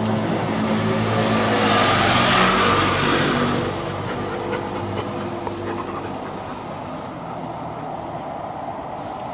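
A motor vehicle driving past: a steady engine hum with tyre and road noise that swells to its loudest about two to three seconds in, then fades away.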